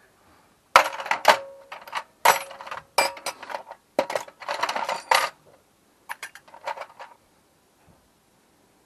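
Loose metal tools clattering and clinking in a run of sharp bursts over about six seconds, one piece ringing briefly near the start: sockets being rummaged through for the right size.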